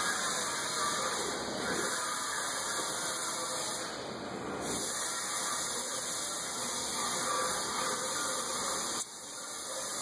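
Steady hiss of background noise, dipping briefly about four seconds in and dropping off suddenly about nine seconds in.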